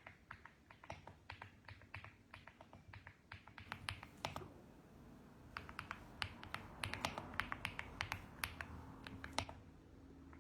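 Typing on a mechanical keyboard: quick runs of clicky keystrokes, with a brief pause about halfway and a stop near the end.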